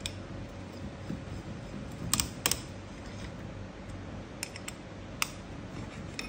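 A handful of light, sharp metal clicks and taps, two close together about two seconds in, as a hex key is worked on the hub screws of a steel chain sprocket.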